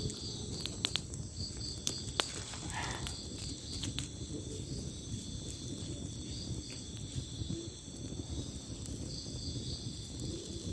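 Night chorus of crickets and other insects: steady high trilling with a pulsing call woven in. Underneath is a low noisy rumble, and a few sharp clicks come in the first two seconds or so.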